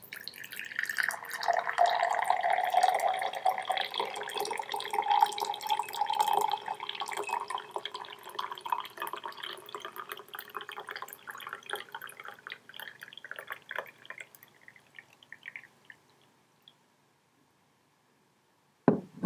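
Tea pouring from a cast-iron teapot into a tall ceramic mug: a steady stream whose pitch rises slightly as the mug fills, thinning to a trickle and a few drips after about fourteen seconds. A single sharp knock near the end is the loudest sound.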